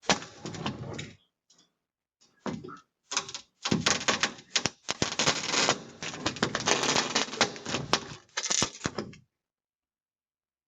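Rapid clicking and knocking with rustling, coming in bursts and stopping abruptly about nine seconds in, picked up by a doorbell camera's microphone.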